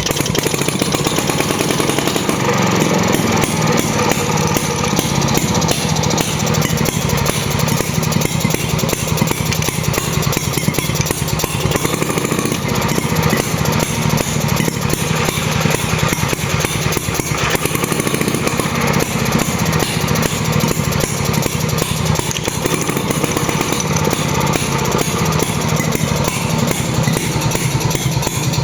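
Stuart Turner P5M two-stroke petrol marine engine running steadily at an even speed.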